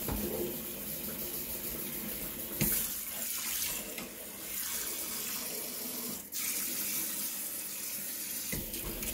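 Kitchen faucet running into the sink, water splashing steadily as a knife is washed by hand under it. A sharp knock sounds about two and a half seconds in, and the flow briefly drops a little past six seconds.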